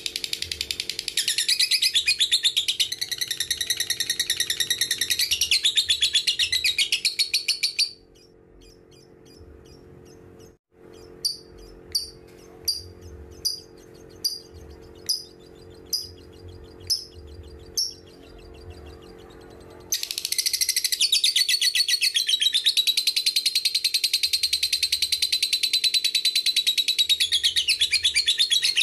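Fischer's lovebird's long, rapid high-pitched chattering song (ngekek). About a quarter of the way in it breaks off, and after a short pause comes a run of about nine separate sharp chirps, a little over one a second. The continuous chatter resumes for the last third.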